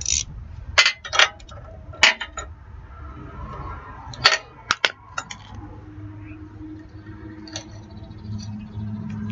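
Sharp metallic clicks and clinks, a dozen or so in the first five seconds and a few later, as a spark plug and spark tester are handled and fitted. A low steady hum comes in about six seconds in and grows louder near the end.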